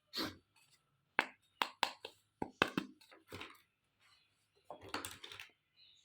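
Miniature toy kitchen pieces being handled: a series of light separate clicks and clinks, then a short, denser clatter about five seconds in.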